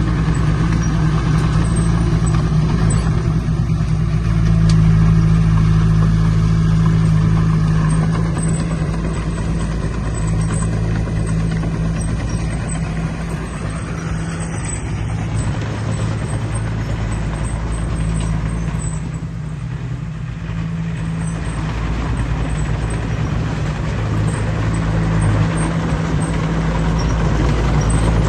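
Heavy earthmoving machine's diesel engine running steadily under load, easing off a little about two-thirds of the way through and picking up again near the end.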